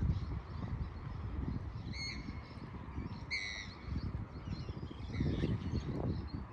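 Two short, high bird calls about a second apart, over a steady low rumble of wind on the microphone.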